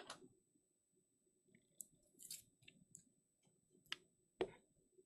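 Faint clicks and rustles of trading cards being handled and slid against each other, with a sharper tap about four and a half seconds in.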